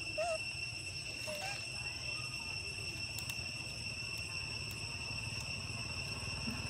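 Steady high-pitched drone of insects such as cicadas or crickets, one unbroken whine, over a low background rumble. A couple of short faint chirps come in the first second and a half.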